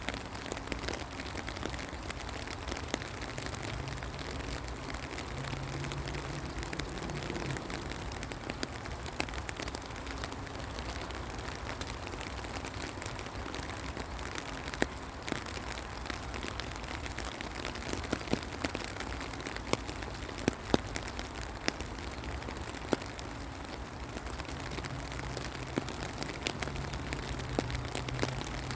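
Steady rain falling, with many separate drops striking sharply through it.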